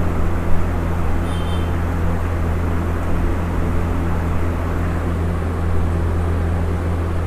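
A steady low mechanical hum with an even rushing noise, unchanging throughout, with a faint brief high tone about a second in.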